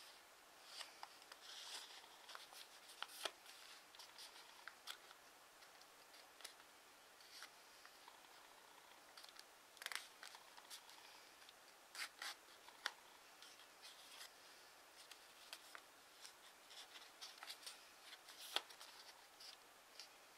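Faint rustling of a sheet of origami paper being folded and creased by hand, with scattered sharp crinkles and clicks as the folds are pressed, a few louder ones about 3, 10, 12 and 18 seconds in.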